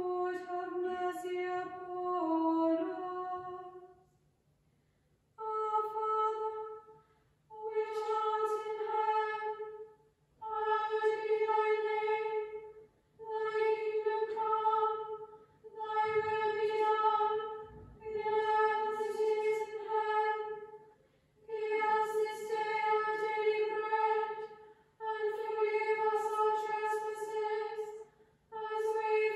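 Small unaccompanied female choir singing: a short phrase with moving, descending notes, then a run of phrases chanted on one steady reciting note, each a few seconds long with brief breaths between.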